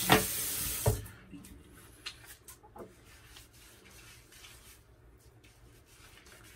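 Water tap running into a bathroom sink with two knocks, shut off about a second in. Faint rubbing and a few soft clicks follow as lather is worked over the face by hand.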